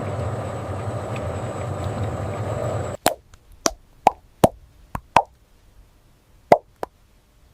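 A steady machine hum with a thin high whine that cuts off abruptly about three seconds in. It is followed by about ten sharp, hollow plops or taps at uneven intervals.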